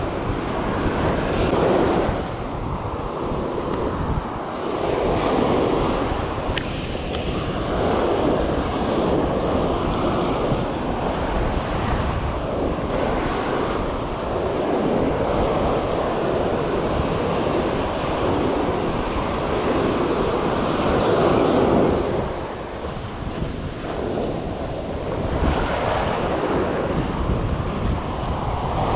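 Surf breaking and washing up the beach, swelling and easing every few seconds, with wind buffeting the microphone.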